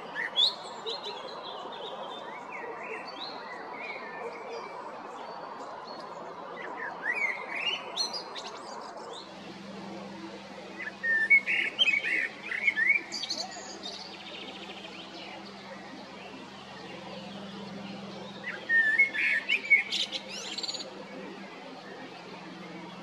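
Male common blackbird singing: several short phrases of fluty, gliding whistles, each ending in high squeaky twitters, separated by pauses of a few seconds.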